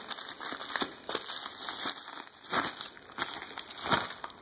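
White packing wrap crinkling and rustling in irregular handfuls as hands unwrap it, with louder crinkles about two and a half and four seconds in.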